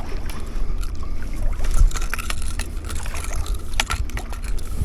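Wind rumbling on the microphone, with scattered light clicks and knocks of handling.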